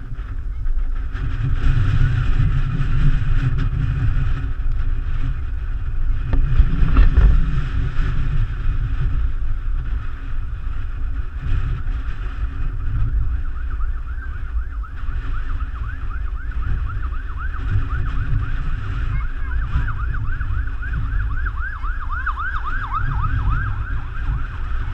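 Emergency vehicle siren wailing, then switching to a rapid yelp about halfway through that grows louder toward the end, over heavy wind rumbling on the microphone.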